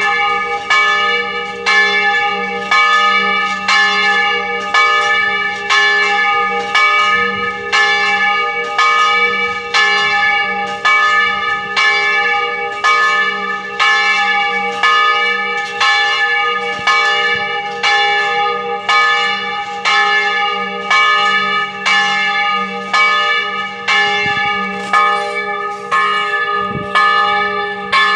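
A large church bell, the biggest of the church's three cast bells, rung in steady, even strokes a little faster than one per second, each stroke sounding over the hum of the one before.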